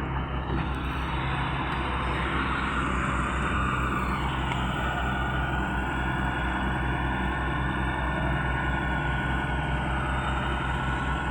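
Excavator's diesel engine running steadily under work, with a higher whine joining about two seconds in.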